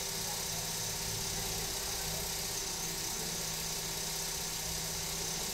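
A steady mechanical hum over an even hiss, unchanging throughout, with no distinct events.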